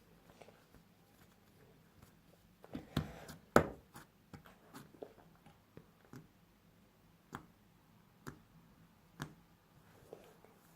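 Homemade flour-and-shampoo slime being squeezed and stretched by hand, giving off soft sticky clicks and pops at irregular intervals, the loudest a little over three and a half seconds in.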